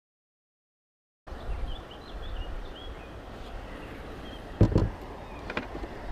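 About a second of dead silence, then outdoor ambience: a steady low rumble of wind on the microphone with a few short high chirps, and a single thump about four and a half seconds in.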